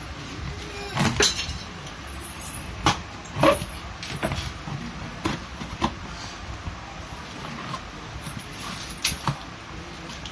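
Cardboard and plastic packaging being handled and opened, with scattered sharp clicks, taps and rustles over a low background hum.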